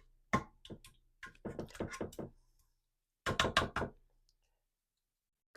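A serving utensil knocking against a baking pan while meat sauce is spread over the bottom of the pan: a run of short, irregular knocks in a few quick clusters.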